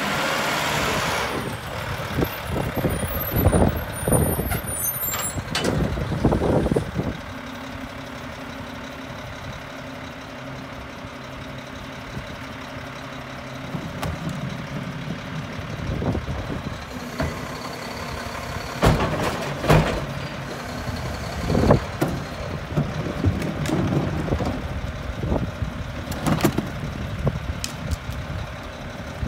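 Mack garbage truck with a Heil rear-loader body: a hiss of air brakes as it stops, then the diesel engine idling steadily. Now and then there are sharp bangs as plastic recycling bins are tipped and knocked against the rear hopper, several in quick succession a few seconds in and more in the second half.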